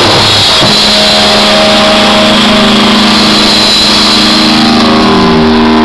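Live rock band playing loud: electric guitar and bass guitar holding long sustained notes over drums.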